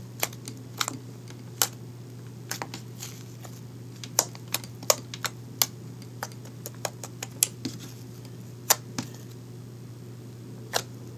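Fluffy slime being poked and squeezed by fingers, giving irregular small sharp clicks and pops, a dozen or more scattered through, over a steady low hum.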